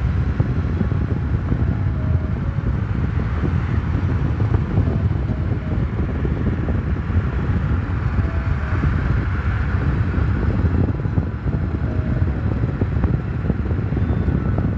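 Steady, low road and wind noise of a car driving along, heard from inside the car.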